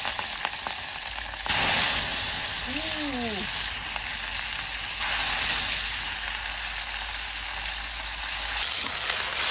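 Blanched chicken leg pieces dropped into hot oil in a wok over a wood-fired camp stove, frying with a loud, steady sizzle. The sizzle jumps louder about one and a half seconds in, as the chicken goes into the oil.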